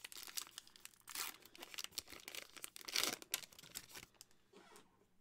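A trading-card pack wrapper being torn open and crinkled by hand, in a run of rustling, with the loudest bursts about a second in and about three seconds in.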